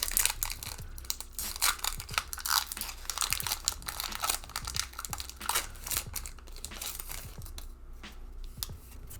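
Foil wrapper of a trading-card booster pack crinkling and tearing as it is opened, in a dense run of short crackles.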